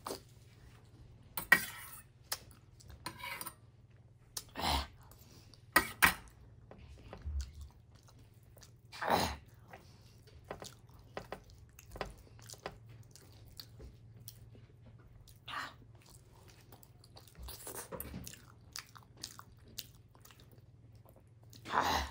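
Close-miked chewing and mouth noises of a person eating, with irregular wet clicks and several louder short bursts.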